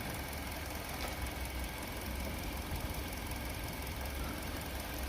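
Hyundai Elantra's engine idling steadily, a low even hum.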